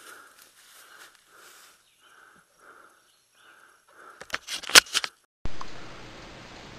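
Helmet-mounted camera being handled: a cluster of loud knocks and scrapes about four seconds in, ending in an abrupt cut to steady hiss. Before it, a faint soft pulse repeats about twice a second.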